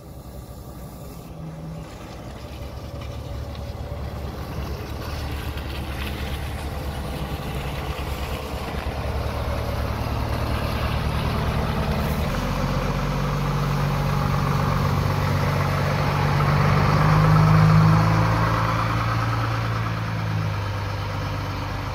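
Diesel engine of a Renault coach working under load as the bus pulls away across a waterlogged, muddy field. It gets steadily louder, revs up about halfway through, and is loudest a few seconds before the end.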